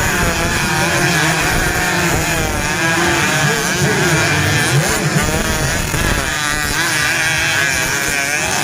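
Several motocross bike engines revving at once, their pitches rising and falling constantly over a steady low rumble.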